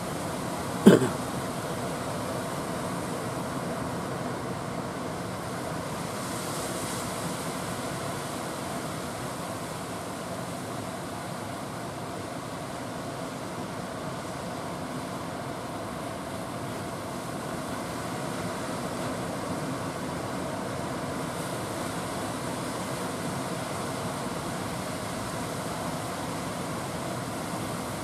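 Steady rushing noise of surf breaking on the beach, with one sharp knock about a second in.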